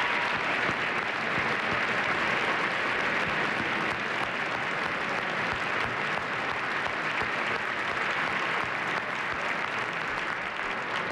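A large audience applauding steadily, a dense, even wash of clapping.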